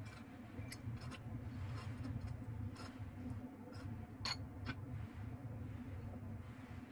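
Knife and lemon pieces clicking and tapping against a cutting board and a small ceramic dish as lemon slices are cut into pieces and placed in the dish: scattered sharp clicks, the loudest about four seconds in, over a steady low hum.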